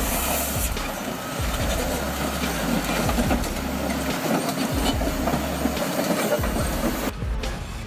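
Heavy machinery running with a steady clanking, rattling clatter, over background music with a deep, pulsing bass. About seven seconds in, the high hiss drops away abruptly.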